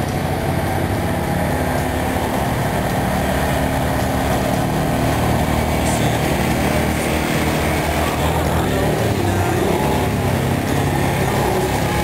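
Yamaha Wolverine 450 quad's single-cylinder four-stroke engine running and revving under the rider, its pitch rising and falling as the quad is ridden up onto two wheels and past.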